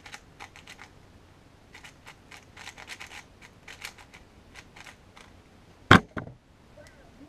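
Qiyi MS 4x4 speedcube being turned fast, a quick irregular run of plastic clicks from its layers, then a loud slap about six seconds in as both hands come down on the speedcubing timer to stop it at the end of the solve.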